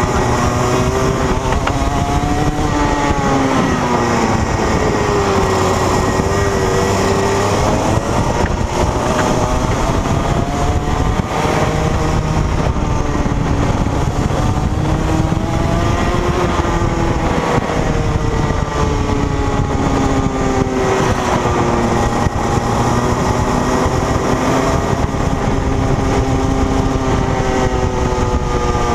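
Rotax Max 125 cc single-cylinder two-stroke kart engine at racing speed, its note climbing as the kart accelerates and dropping as it brakes for corners, again and again through the lap, with wind rush over it.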